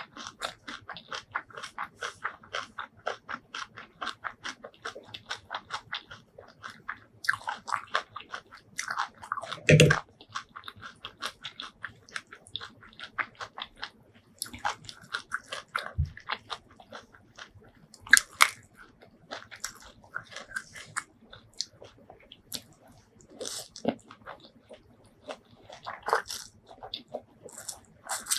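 Close-miked chewing and crunching of a spicy Thai rice-noodle salad with raw vegetables and herbs. It starts as a fast, even run of about four chews a second, then turns irregular, with one loud crunch about ten seconds in.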